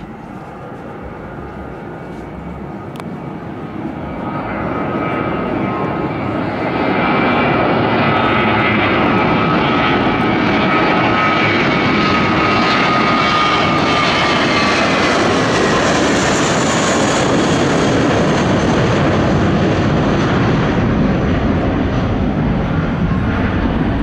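Twin-engine Airbus A320-family jet airliner taking off at full thrust. The jet noise builds over the first several seconds as it rolls and lifts off, then stays loud as it climbs overhead, with whining engine tones that slide slightly lower as it passes.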